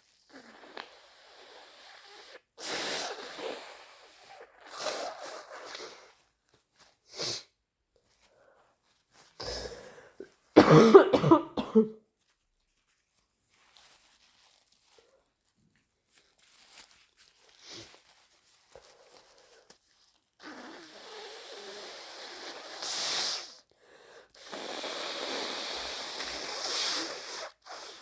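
A person with flu giving several short breathy bursts, then one loud, wet sneeze partway through, and later blowing a snotty nose twice, each blow a couple of seconds long.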